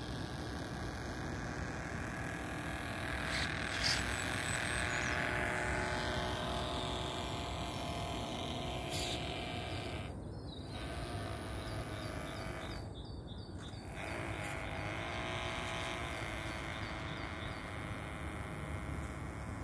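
Radio-controlled air boat's electric motor and toroidal propeller whining, its pitch rising and falling as the throttle changes, over a steady outdoor background hiss.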